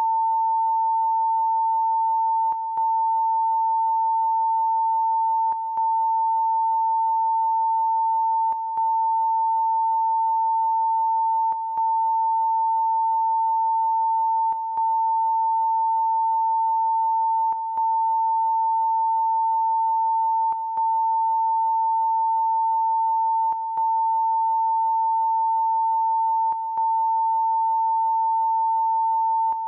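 Broadcast line-up test tone accompanying colour bars: a steady pure tone near 1 kHz, broken by a short gap about every three seconds.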